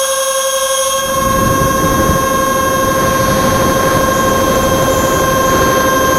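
Electric ducted fans of a radio-controlled Cessna 550 model jet running at high throttle: a steady high whine, joined about a second in by a loud rush of air.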